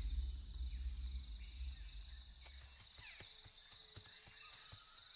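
A steady high-pitched insect trill, like a cricket. A low rumble fades out over the first two seconds, and scattered sharp clicks come in the second half.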